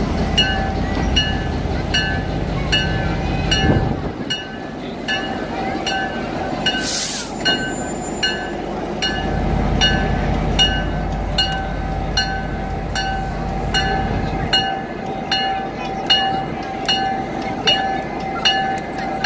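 An electric warning bell on a railway turntable rings in a fast, even series of strikes, about three a second, while the turntable rotates carrying a diesel locomotive. A low rumble of machinery comes and goes beneath it, and there is a short hiss about seven seconds in.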